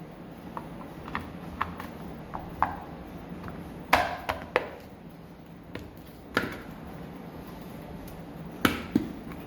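Black polymer ProMag AK-47 drum magazine parts being fitted together by hand: a run of light plastic clicks and knocks as the end cap is seated on the drum, with three louder knocks about four, six and a half and nearly nine seconds in.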